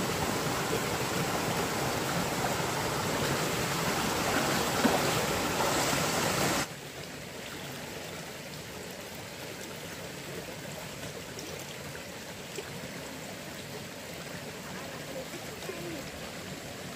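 Shallow rocky stream rushing over a small cascade as a steady wash of water. About six and a half seconds in it cuts off suddenly, leaving a much quieter, faint steady outdoor background.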